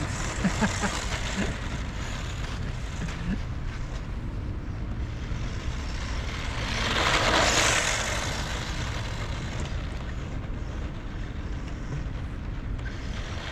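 Brushed-motor Losi Mini-JRXT 1/16-scale RC truck driving over dirt and grass in wind, with a steady wind rumble on the microphone. A rush of motor and tyre noise swells and fades about seven seconds in as the truck passes close.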